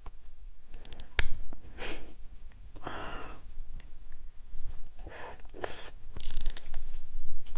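Close-up eating sounds of a gummy candy: a sharp click about a second in, then several short, breathy, wet mouth noises as it is chewed.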